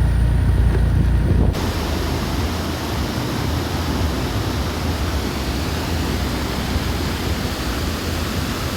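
A low rumble, then an abrupt cut about a second and a half in to the steady, even rush of a waterfall's falling water.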